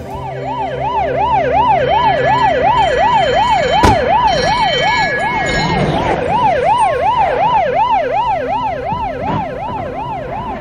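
Ambulance siren in a fast yelp, its pitch rising and falling about three times a second, with a sharp crack about four seconds in.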